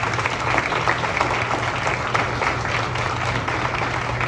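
Audience applauding: many hands clapping together at a steady, even level.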